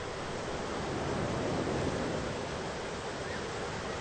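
Thunderstorm ambience: a steady rushing noise that swells slightly between one and two seconds in.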